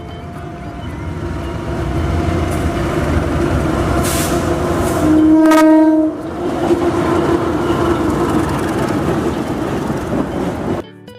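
A train running with a steady rumble and a horn sounding, loudest in one blast of about a second midway; the sound cuts off suddenly near the end.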